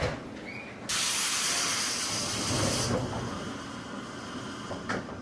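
Sudden blast of compressed air hissing from a JR 211 series electric train's pneumatic system, about two seconds long starting about a second in, then tailing off. A short click comes at the start and another near the end, over the train's low running rumble.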